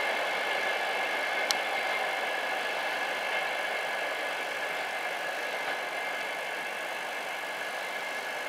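Class 390 Pendolino electric train moving away, its steady hum and whine fading slowly. A sharp click comes about a second and a half in.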